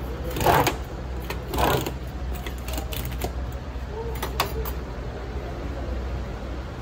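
A pizza-cutter wheel scraping through a large paratha against a steel platter in two strokes about a second apart, then scattered clinks of metal and small bowls. A steady low hum runs underneath.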